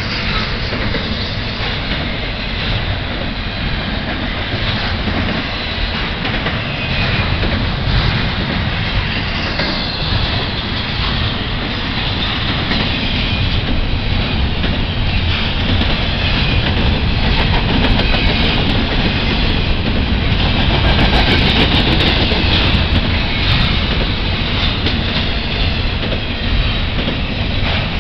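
Double-stack intermodal freight train's well cars rolling past, a steady loud noise of steel wheels on the rails, a little louder in the second half.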